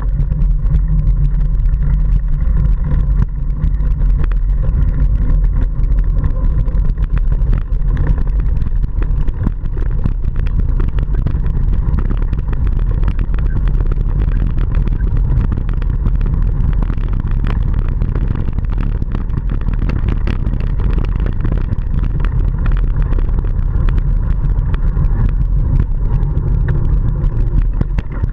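Wind rumbling on the microphone of a camera riding on a mountain bike over a rough dirt track, with frequent small knocks and rattles from the bumps.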